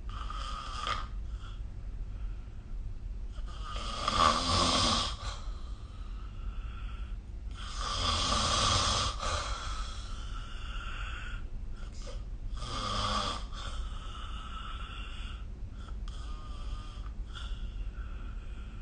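A person snoring in sleep: a series of rough snores a few seconds apart, the loudest about four seconds in and another long one around eight seconds in, with weaker snores in between.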